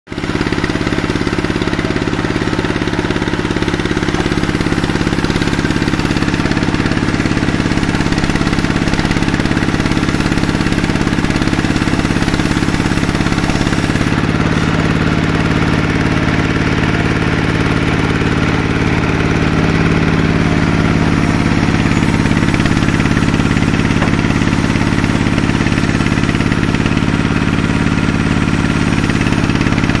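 Sawmill saw machine running steadily: its motor and belt-driven pulley make a constant low drone, with the noise of the saw cutting wood over it. The drone shifts a little in pitch about 14 seconds in.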